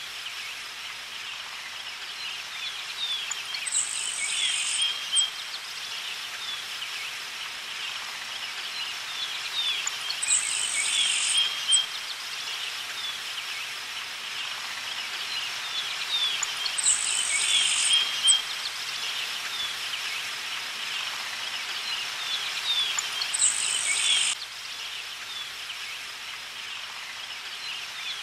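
Nature ambience of chirping birds over a steady high insect drone, with a short high hiss that comes back about every six and a half seconds, as in a repeating loop.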